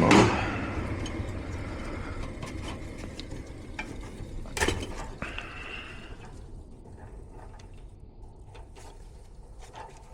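A furnace's running motor noise dies away gradually after a knock at the start, with scattered light clicks and knocks from handling the wiring plug on the control board.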